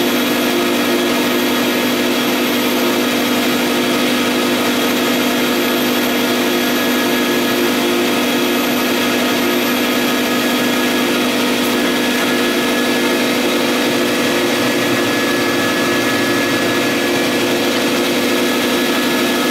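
Vutek UV-curable flatbed printer running while it prints onto a rigid board: a steady mechanical hum with several constant tones over a hiss, unchanging throughout.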